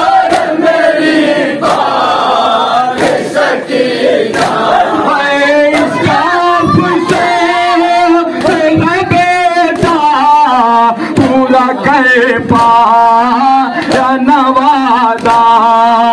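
Crowd of Shia mourners chanting a noha lament together, with regular sharp chest-beating slaps (matam) in time. From about five seconds in, one male voice leads the singing clearly above the crowd.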